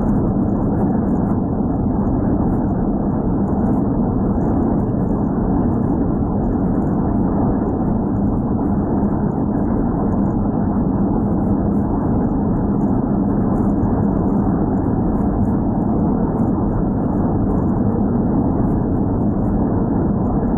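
Steady road noise of a car cruising at highway speed, heard from inside the car: an unbroken low drone of tyres and engine.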